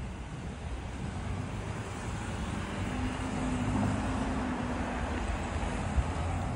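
Road traffic noise from passing cars, swelling as a vehicle goes by about three to five seconds in, with a single short thump about six seconds in.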